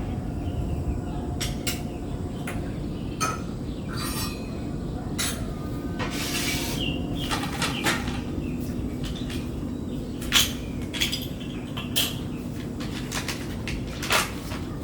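Scattered clinks and knocks of dishes and cutlery being handled, with a short rush of noise about six seconds in and a few faint bird chirps, over a steady low background hum.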